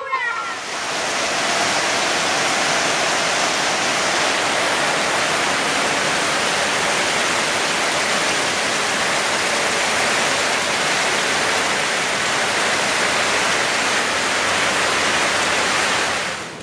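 Heavy rain pouring down: a steady, even rush of noise that fades out near the end.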